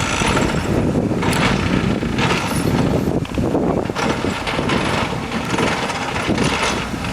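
CAT 315 GC excavator working: a steady low engine rumble mixed with noisy machine sound, with a couple of louder surges early on.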